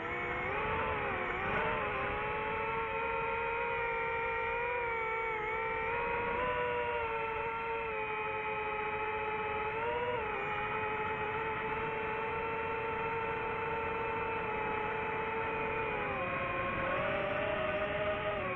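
DJI FPV drone's motors and propellers whining steadily in flight, the pitch dipping and rising a little with throttle changes and stepping up near the end.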